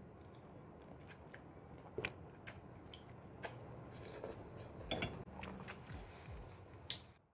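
Close-miked eating sounds of a person chewing and slurping thick Penang laksa rice noodles, with many small wet mouth clicks and a brief louder rush of noise about four seconds in.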